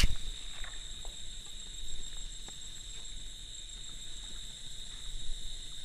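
Crickets (jhinjhi poka) chirring in a steady, high-pitched drone, with a few faint ticks and knocks over it.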